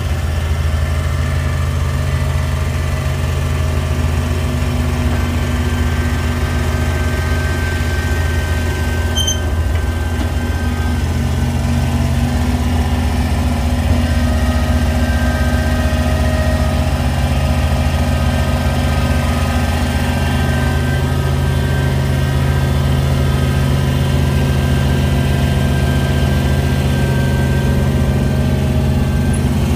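Vehicle engine running steadily at an even speed, a constant low drone.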